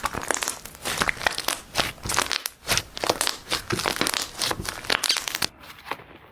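Slime being squeezed, giving a dense run of crackling, popping clicks that breaks off abruptly about five and a half seconds in, leaving fainter, duller squishes.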